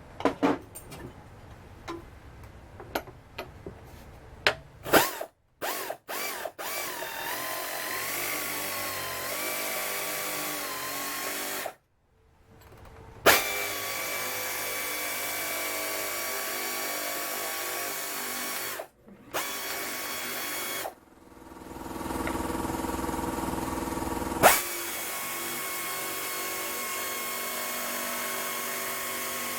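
A few sharp clicks of metal being cut by hand in the first five seconds, then pneumatic air shears cutting sheet metal in long steady runs with a high whine. The shears stop briefly three times, about twelve, nineteen and twenty-one seconds in.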